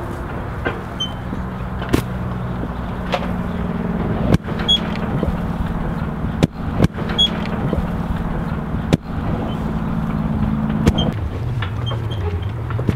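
Horse-drawn wagon rolling with a steady low rumble. Sharp knocks and thuds come at irregular moments, about a dozen in all, as the wagon rattles and sprout mats are tossed off it.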